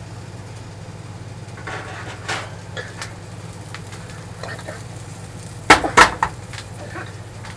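Metal broiler pan clattering as it is lifted out of the oven and set down on the stove: a few light knocks, then two sharp, loud clanks toward the end. A steady low hum runs underneath.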